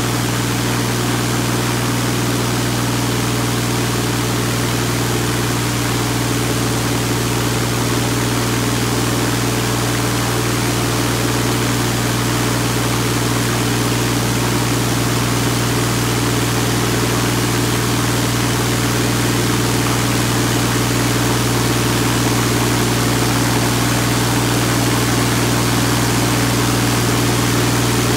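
UL Power UL520iS six-cylinder, air-cooled aircraft engine running steadily at high power, about 2,400 rpm, during a static ground run-up, heard from inside the cockpit.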